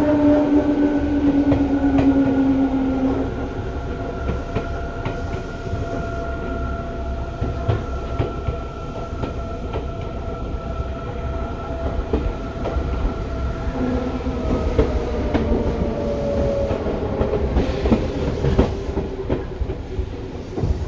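Seibu 2000 series electric train running: a steady whine whose pitch slowly falls as the train slows, over a low rumble, with the wheels clicking over rail joints.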